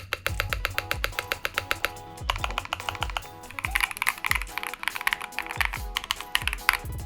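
Typing on a custom NK87 aluminium mechanical keyboard fitted with Akko CS Crystal Blue switches: a rapid run of clacky keystrokes. Trap music with deep, falling bass drops plays over it.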